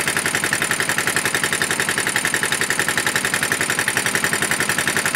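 Small outboard-style engine of an outrigger fishing boat running steadily under way, a fast even pulse of about ten beats a second.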